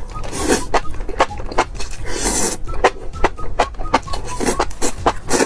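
Slurping and chewing spicy enoki mushrooms, with a longer slurp a little over two seconds in and quick wet chewing clicks about three a second, over background music.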